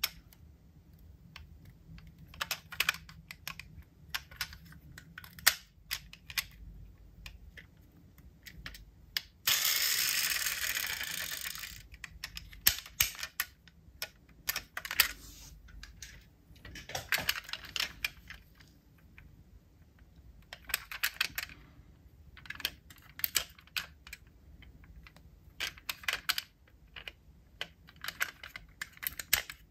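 Diecast metal model cars being handled: irregular clusters of small clicks and taps as their doors are opened and snapped shut and the cars are turned in the hands. About ten seconds in, a brief whirring hiss fades away over about two seconds.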